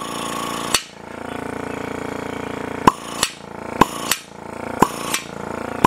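Vacuum pump running with a steady, pulsing hum while it holds 21 inches of vacuum on an exhaust valve port, the spring-less valve pulled shut by vacuum alone: the newly cut seat is sealing. Sharp clicks cut in, one just before a second in, then in pairs about a second apart through the second half.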